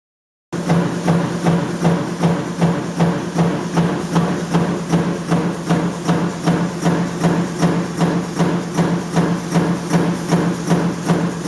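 Sheet-metal stamping press running in a steady cycle, a knock about two to three times a second over a continuous low hum.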